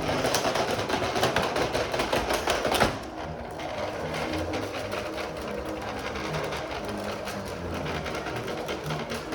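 Vacuum cleaner running with a rapid rattling clatter that is loudest for about the first three seconds, then settles lower.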